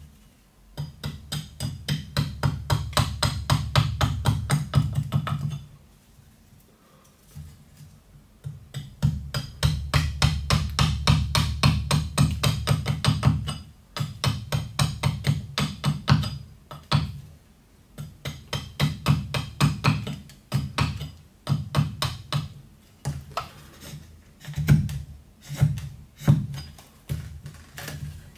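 Small carving axe chopping a wooden spoon blank held upright on a chopping stump. The strokes come in quick runs of about four a second, each ringing with a dull knock from the block, broken by short pauses.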